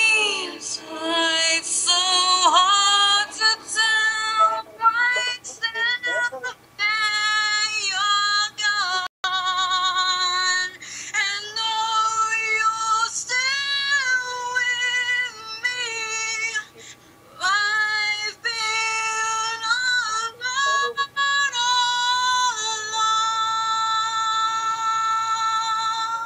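High wordless singing with vibrato, one voice moving from note to note in a slow melody, ending on a long held note that stops suddenly.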